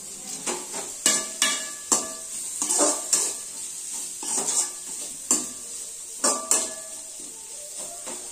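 Perforated steel skimmer scraping and clinking against an aluminium kadai as onions and ginger-garlic paste are stirred and sautéed in oil, over a steady sizzle. The pan rings briefly after the harder strokes.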